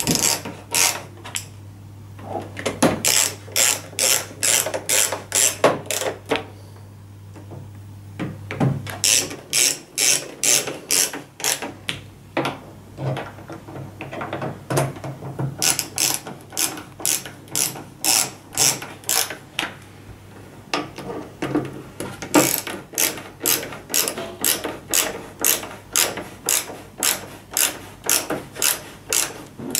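Ratcheting screwdriver clicking in runs of about three clicks a second, with short pauses between runs, as screws are driven into a TV's plastic back cover.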